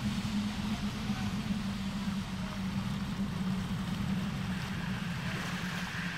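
Rushing water with a steady low hum underneath.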